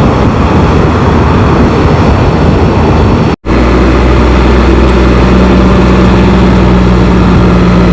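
Wind rush and road noise on a Can-Am Spyder three-wheeler riding at speed, under a steady engine drone. The sound cuts out for a moment about three seconds in; after that the low engine hum stands out more clearly.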